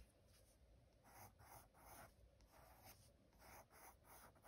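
Faint scratching of a graphite pencil on sketchbook paper: a series of short drawing strokes, about two a second.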